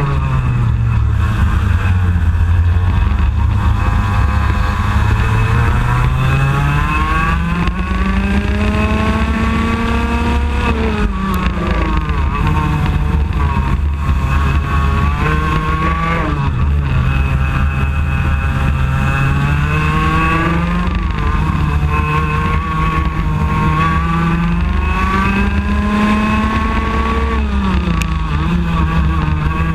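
IAME X30 125cc two-stroke kart engine at racing speed, heard onboard. Its note climbs gradually down the straights and drops sharply under braking into corners, several times over.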